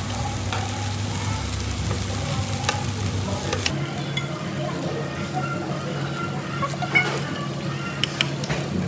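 Meat sizzling on a tabletop grill, with occasional sharp clicks of utensils.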